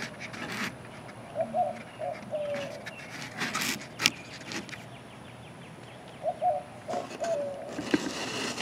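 A dove cooing in the background, the same short phrase twice about five seconds apart. Scraping and rubbing noises and a sharp click about four seconds in.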